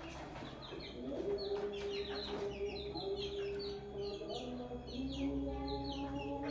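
Birds chirping: many short, high chirps, each falling in pitch, coming thick and fast, with a steady low tone underneath.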